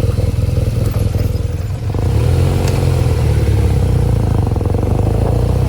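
BMW R nineT Pure's 1170 cc boxer twin running under way, heard from the rider's seat, with its pitch rising slightly about two seconds in, over a steady rush of wind noise.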